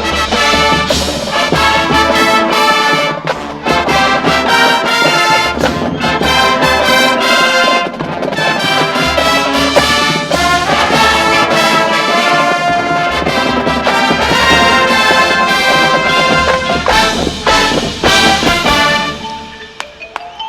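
High school marching band playing loud brass chords, trombones and trumpets over drums, the music dropping away near the end.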